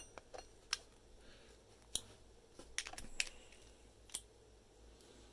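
Scattered sharp metallic clicks, about six over a few seconds, from a hand-filed brass key being pushed down and worked in a rotary padlock. The key is cut slightly too deep, so it only turns the lock with downward force.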